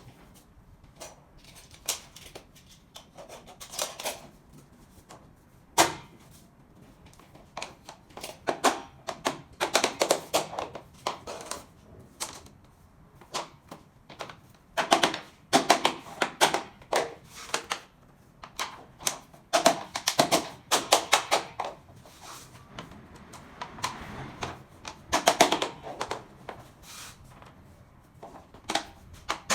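Quick runs of light, sharp taps and knocks in irregular clusters, with short pauses between them: SPC stone-plastic floor planks being tapped and knocked together as they are laid.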